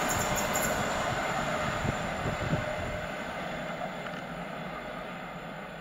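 Passenger train running away down the line, its wheel and rail noise fading steadily as it recedes, with a couple of faint knocks about two seconds in.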